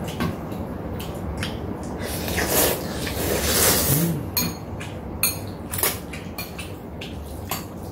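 Jajangmyeon noodles being slurped in a long hissing draw of about two seconds, followed by chopsticks and a spoon clicking against the bowls several times.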